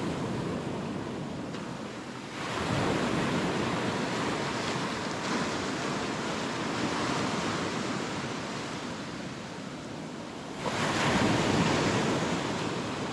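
Ocean surf breaking and washing up a sandy beach, with one wave surging in louder about two seconds in and another near the end.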